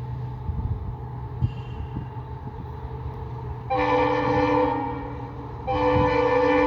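WDG4 diesel locomotive's engine running with a steady low hum while its multi-tone air horn sounds twice: a blast of about a second starting some four seconds in, and a longer one beginning near the end. A single sharp knock is heard about a second and a half in.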